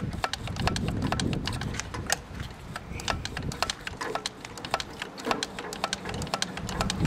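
Rapid, irregular clicks from vise-grip pliers working a seized, salt-corroded brass linkage piece back and forth on an old Johnson 15 HP outboard, freeing it up.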